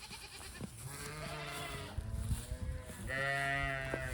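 A farm animal calling twice, each a long drawn-out call of about a second or more, the second near the end.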